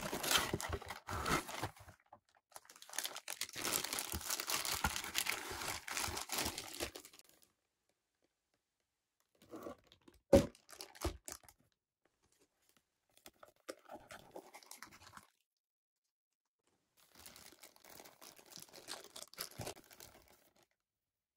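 A cardboard figure box being handled and opened, its flaps and inner tray scraping and rustling, then clear plastic packaging bags crinkling as the figure and its parts are unwrapped. Two sharp knocks come about ten seconds in, and the crinkling comes in two quieter spells later on.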